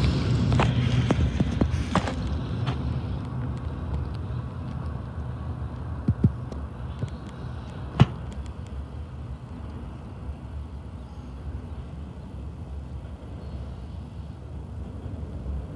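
Wheels of an intermodal freight train's last cars rumbling on the rails and fading steadily as the train moves away. A few sharp clicks come in the first seconds and a louder single click about eight seconds in.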